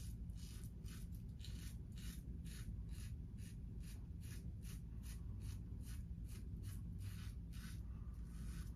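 A Henson double-edge safety razor fitted with a very sharp Feather blade, scraping through lathered, thicker-than-usual beard stubble in short, quick strokes, about three a second.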